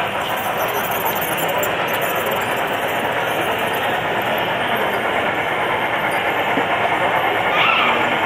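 Large-scale model train running along its track, heard close up as a steady rumble of wheels and motor.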